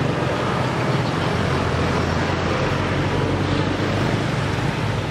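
Steady road traffic noise with the low hum of a vehicle engine running, unbroken throughout.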